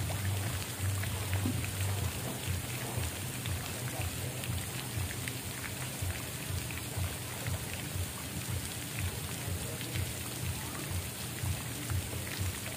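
Steady falling and splashing water with many small drips and patters over a low rumble.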